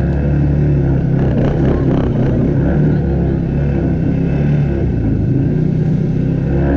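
ATV engine running steadily while riding.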